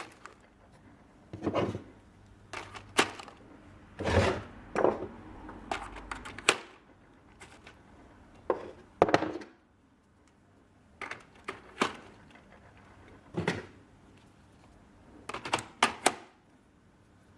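Screwdrivers being slotted one by one into a bracket mounted on a metal workbench plate, giving about a dozen irregular knocks and clicks.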